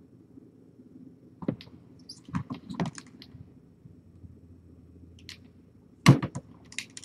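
Scattered sharp clicks and taps, like something small being handled or tapped: one about a second and a half in, a quick cluster around three seconds, and the loudest a second before the end. A low steady hum runs underneath.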